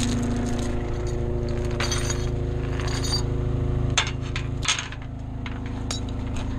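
Skid loader's diesel engine running steadily, with a few sharp metallic clinks and clanks, the loudest about four seconds in and another just before five.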